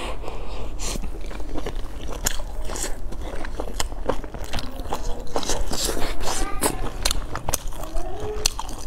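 Close-up eating sounds: biting into and chewing pan-fried stuffed buns, with many sharp, irregular wet mouth clicks and lip smacks.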